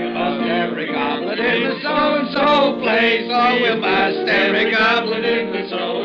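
A group of men singing together in a rowdy party chorus, with steady held notes from a piano underneath. The old broadcast recording is muffled, with no treble above about 5 kHz.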